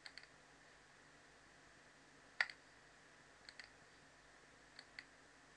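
Faint computer mouse button clicks, scattered: a couple at the start, one louder single click about midway, then two quick double clicks near the end.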